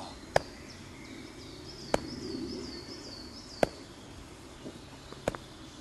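A slow, even beat of four sharp percussive strikes, about a second and a half apart. Faint outdoor background with a bird chirping over and over.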